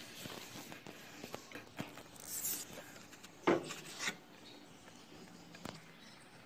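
Quiet handling sounds on a domestic sewing machine: soft rubbing with a few small clicks and knocks, the loudest about three and a half seconds in.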